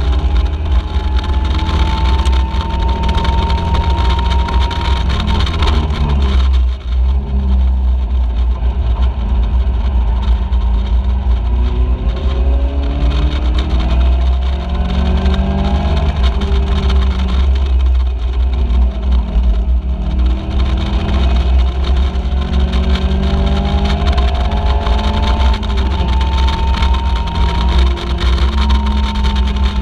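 Caterham Seven race car engine at full racing speed, heard from the open cockpit: the pitch rises through the gears and drops back on lifts and downshifts for corners, over heavy wind buffeting on the microphone.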